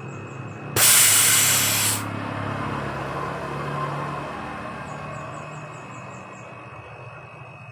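A sudden loud blast of pressurised air hisses out of a freezer's refrigerant line for about a second, then tails off into a fainter hiss that fades. The line is being blown through to purge oil from the evaporator. A low steady hum runs underneath.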